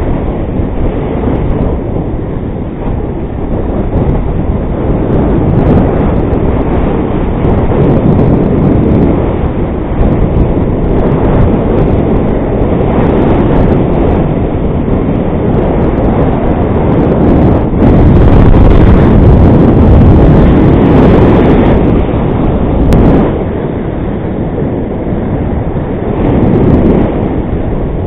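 Strong wind buffeting the microphone of a paraglider's mounted camera in flight: a loud, dense rush that surges and eases, strongest about two-thirds of the way through.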